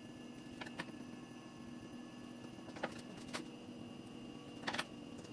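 Faint sharp clicks and taps from dog-grooming tools being handled at the table, in pairs about a second in, around three seconds in and near the end, over a steady low hum.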